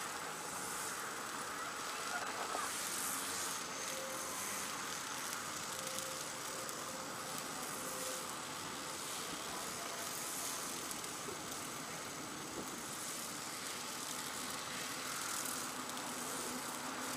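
String trimmers running steadily at a distance, cutting tall grass.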